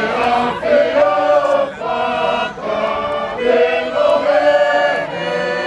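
A group of Tongans singing together as a choir, many voices holding notes in phrases of about a second, with short breaks between phrases.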